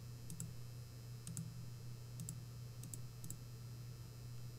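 Clicking at a computer: a short double click, press and release, about once a second, over a low steady hum.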